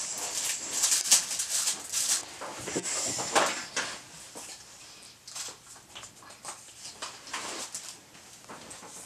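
Packaging rustling and crinkling in a run of quick handling noises as a bulk pack of Nerf darts is opened. It is busiest in the first few seconds, then quieter and more scattered.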